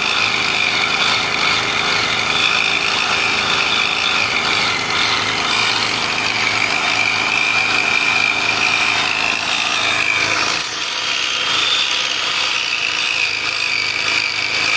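Abrasive rail cutting saw grinding its cut-off wheel through a steel rail, a steady high-pitched whine over a gritty grinding noise. The sound eases briefly about ten seconds in, then carries on.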